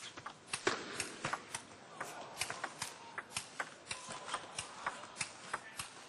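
A table tennis ball in a long, fast rally: the celluloid ball clicking off the bats and the table, about three sharp clicks a second at a fairly even pace.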